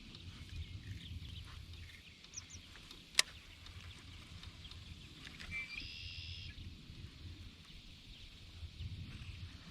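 Quiet pondside outdoor ambience with an uneven low rumble on the microphone. A single sharp click comes about three seconds in, and a short pitched animal call, likely a bird, comes about six seconds in.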